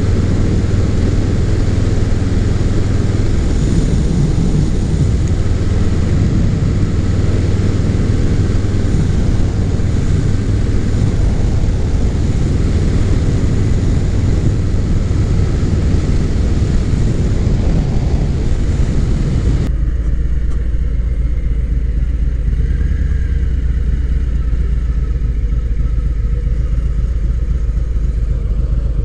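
Harley-Davidson Low Rider's Milwaukee-Eight 107 V-twin running while the bike is ridden, with heavy wind rush over the microphone. About two-thirds of the way in, the wind noise cuts off abruptly. The engine is then heard idling, low and steady.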